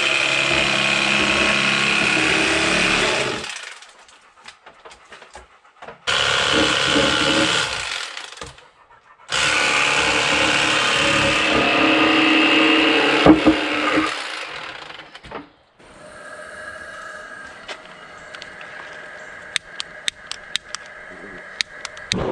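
Electric fillet knife running in three bursts with short pauses between, its motor buzzing steadily as it slices fillets off channel catfish. Near the end, a quick series of sharp clicks from a long lighter being sparked at a gas burner.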